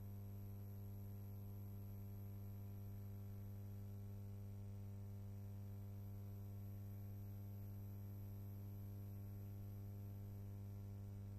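Steady low electrical hum with a stack of evenly spaced overtones and faint hiss, unchanging throughout. No other sound.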